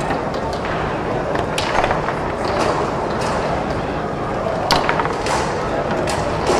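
Table soccer play on a Tornado foosball table: the ball is struck and knocked around by the rod players, making sharp clacks every second or so, the loudest about four and a half seconds in. Behind it a steady murmur of a busy hall.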